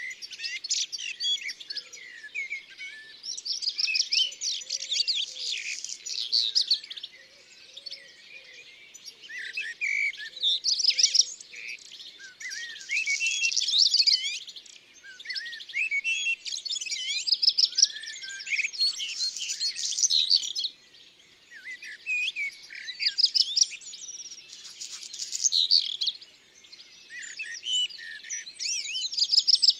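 Small songbirds singing and chirping, several phrases overlapping in bursts of a few seconds with short lulls between them.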